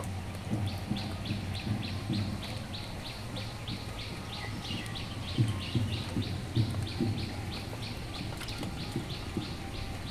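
A bird repeating a short, high chirp about three times a second, steady throughout. Faint, irregular low knocks sit underneath.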